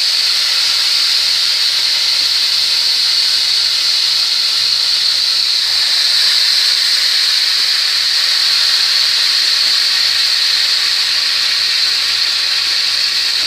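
Marinated chicken pieces frying in hot oil in a pan: a steady, loud sizzle.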